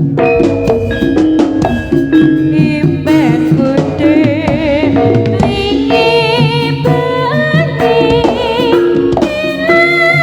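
Javanese jaranan (Senterewe) music: a gamelan ensemble with kendang hand drums beating out a busy rhythm under steady metallophone notes. About three seconds in, a singer comes in with a wavering melody sung with heavy vibrato.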